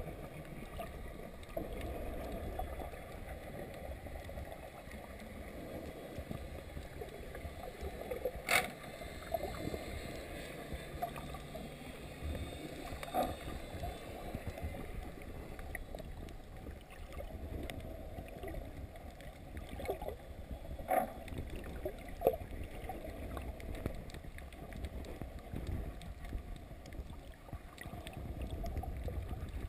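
Muffled underwater noise of water moving around a submerged camera, with a few sharp clicks along the way.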